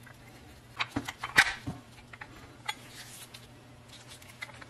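Workshop handling noise as a threaded steel rod is fitted into a wooden tool handle: a quick cluster of sharp clicks and knocks about a second in, the loudest near the middle of the cluster, then a few light ticks.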